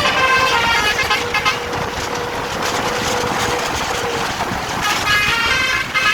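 A bus's Cortas 12 telolet basuri multi-trumpet air horn playing a tune in separate stepped notes, first in the opening second and a half and again near the end. In between there is a rushing, noisier stretch over one steady held tone.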